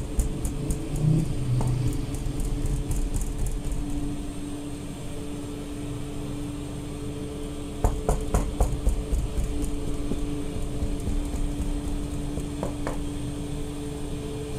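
Steady hum of bakery machinery, with runs of quick light clicks and taps near the start and about eight seconds in as a toothed plastic dough scraper is pressed and worked over barbari dough on the table.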